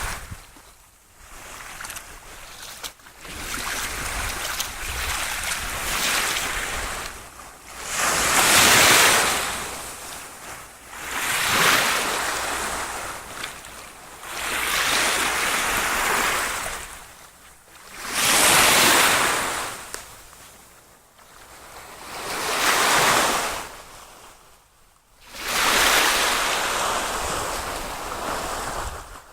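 Waves washing in and falling back in regular surges, one about every three to four seconds.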